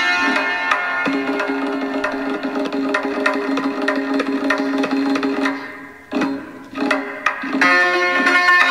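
Santur playing an instrumental passage in dastgah Rast-Panjgah: quick hammered notes ring over a held note. About six seconds in, the playing thins to a few single strikes, then the full run of notes returns.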